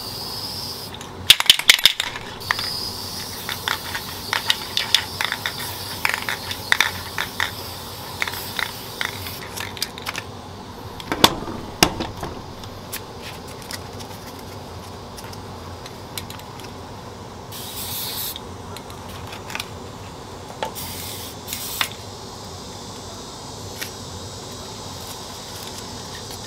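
Aerosol spray-paint can: the mixing ball clicking and rattling as the can is handled and shaken, and several short hisses of paint spray.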